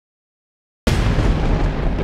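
Silence, then a sudden loud boom a little under a second in, followed by a deep rumbling tail that carries on.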